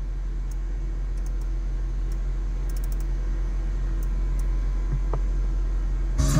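Steady low hum in the car cabin, with a few faint light clicks of fingers tapping the head unit's touchscreen. Near the end, pop music starts playing through the car's speakers.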